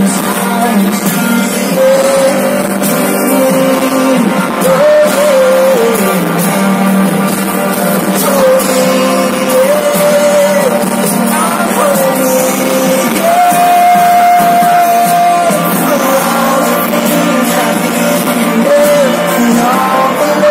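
Live band playing a song with singing and electric guitar, heard through the festival PA from within the crowd. The singing holds long notes, one of them for about two seconds midway.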